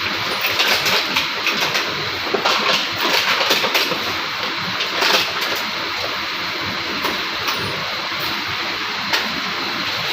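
Steady mechanical workshop noise, with small metal parts clicking and clinking in a run of sharp ticks as a diesel fuel injection pump is put together by hand, and a few more clicks later.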